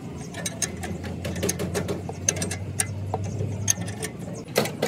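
Metal clicks and clinks from hand-tool work on a diesel generator engine, irregular and sharp, with the loudest pair close together near the end, over a low steady hum.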